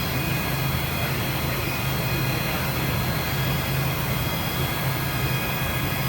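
A Parpas Diamond Linear 5-axis gantry machining center running steadily: an even low hum with faint, thin high-pitched whines above it.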